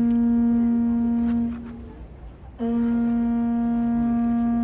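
A traditional Korean horn of a palace guard band sounding long, steady blasts on one pitch: the first breaks off about two seconds in, and a second starts half a second later and holds.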